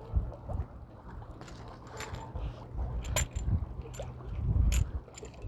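Wind buffeting the microphone outdoors: a low rumble that swells and fades, with a few sharp clicks about two, three and nearly five seconds in.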